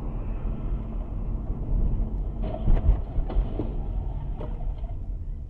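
Low steady road and engine rumble inside a moving car. About halfway through comes a cluster of sharp knocks and thuds from a traffic collision on the road just ahead.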